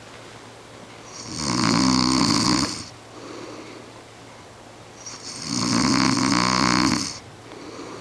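A person snoring: two loud snores about four seconds apart, each lasting a second or more, with quieter breaths between them.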